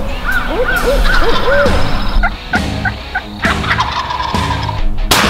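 Wild turkeys calling: a quick series of short rising-and-falling notes, then more scattered calls.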